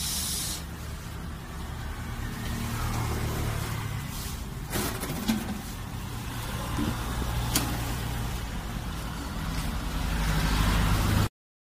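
A motor vehicle engine runs steadily with a low rumble, and two sharp clicks come about five and seven and a half seconds in. The sound grows a little louder near the end, then cuts off abruptly.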